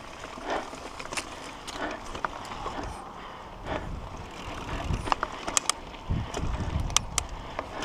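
Mountain bike rolling over a rough dirt trail: the tyres run on dirt while the chain and other parts rattle and click over the bumps, with the sharpest clicks in the second half and a few dull low thumps.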